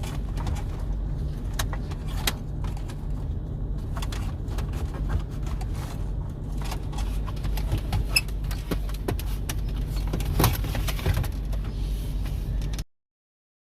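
Scattered clicks, knocks and light clatter of plastic trim and cables being handled as the radio unit is refitted into the car's dash, over a steady low hum. The sound cuts off abruptly near the end.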